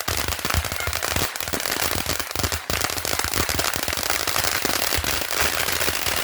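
Long-running firework going off in a dense, rapid, unbroken string of cracks and pops.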